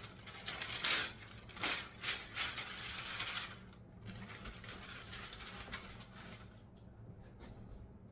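A sheet of paper crinkling and rustling as butter is scraped and shaken off it into a stainless steel mixing bowl, in several loud bursts over the first three and a half seconds, then fainter light rustles and clicks.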